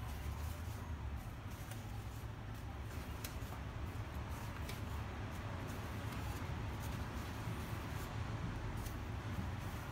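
Pages of a hardcover book turned by hand, paper rustling and sliding, with a few faint ticks, over a steady low hum.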